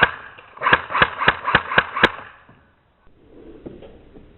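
Airsoft rifle fired in rapid single shots, six sharp cracks about four a second, stopping about two seconds in.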